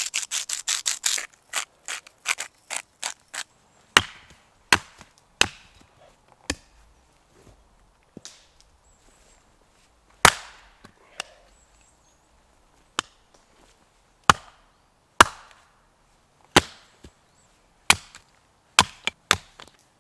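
Axe chopping firewood on a chopping block: a dozen or so sharp strikes about a second apart, some in quick pairs, starting about four seconds in. Before that, at the very start, there is a quick run of gritty grinding strokes as salt is ground over the meat.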